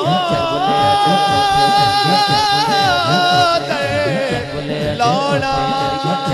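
Male voice singing an Islamic devotional kalam through a microphone, holding a long, wavering note that breaks off a little past halfway. A new phrase starts about a second later.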